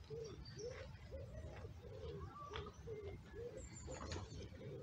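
An animal repeating a short, low, arched call about two or three times a second without a break. There are a few faint high bird chirps over a steady low rumble.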